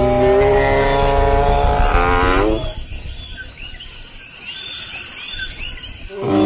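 Long low moaning bellow from a dinosaur sound effect, steady in pitch, breaking off about two and a half seconds in. Quieter forest ambience with faint high chirps follows, and another bellow starts near the end.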